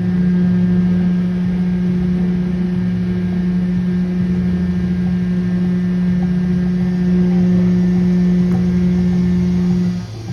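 A loud, steady low hum on one held note, lasting about ten seconds and cutting off suddenly near the end.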